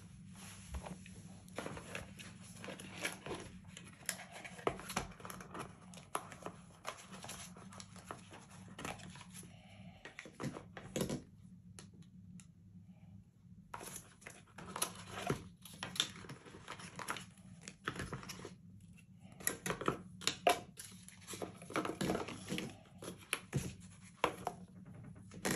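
Packaging being handled and opened: irregular rustling, crinkling and tearing with small clicks, in two stretches with a short lull about halfway.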